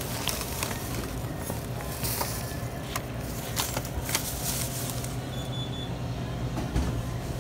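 Vehicle engine running with a steady low hum, with scattered clicks and knocks over it.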